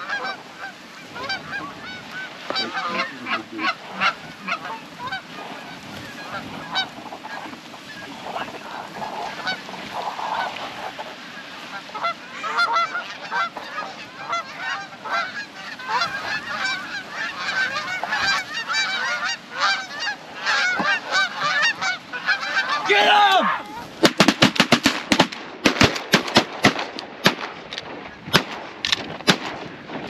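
Canada goose honks and clucks overlapping continuously as a flock circles in over the decoys. About four-fifths of the way in, a rapid volley of loud shotgun blasts from several guns breaks out over the honking.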